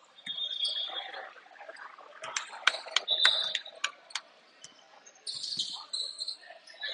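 Basketball play on a gym floor: the ball bouncing and sneakers squeaking, with a quick cluster of sharp knocks between about two and four seconds in.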